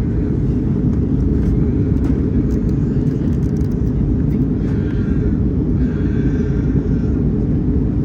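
Steady low rumble of a QantasLink Airbus A319-100 jet airliner's engines and airflow, holding an even level throughout.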